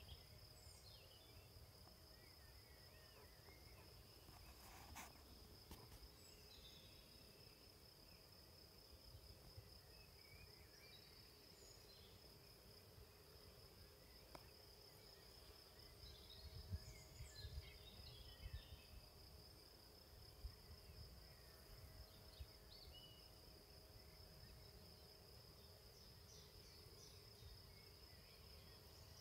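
Faint open-air ambience: a steady, high-pitched insect trill with scattered short bird chirps over it, and gusty wind rumbling on the microphone, strongest a little past halfway.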